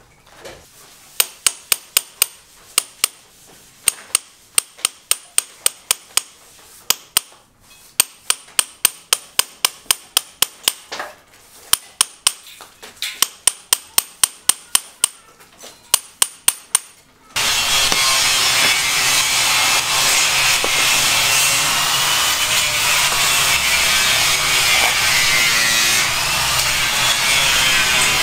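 Hammer blows ringing on steel floor decking, in quick runs of about three blows a second with short pauses. About two-thirds of the way in, a steady loud noise cuts in and takes over.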